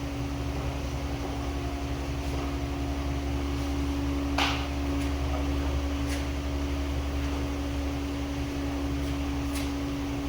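Concrete floor grinder's electric motor running with a steady hum, with a few short sharp clicks at about four, six and nine and a half seconds.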